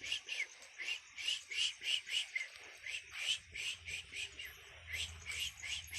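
Frogs calling in a chorus, short high calls repeating about two to three times a second and overlapping one another. A faint low hum joins about four seconds in.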